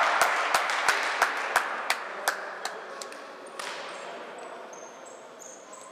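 About eight sharp knocks, evenly spaced at roughly three a second, echoing in a large sports hall and fading away over the first three seconds, followed by faint hall noise.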